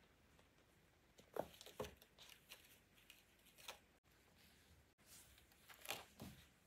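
Faint scuffling of kittens at play: a few short soft thumps and scratchy rustles of paws and claws against a cat tree's sisal-wrapped posts and the floor.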